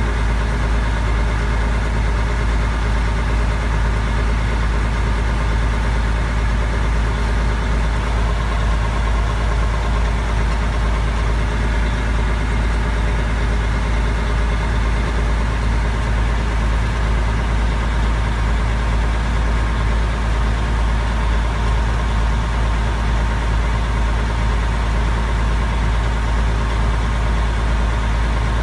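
Mack R600 truck's diesel engine idling steadily, heard from inside the cab as an unchanging low hum.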